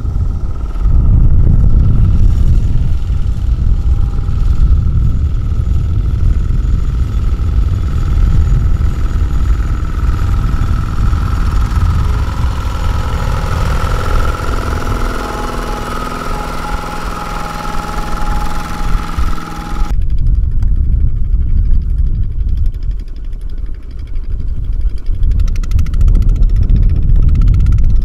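Farm tractor engine running steadily with a heavy low rumble and a held higher-pitched whine. About two-thirds of the way through, the whine drops out suddenly and only the rumble carries on.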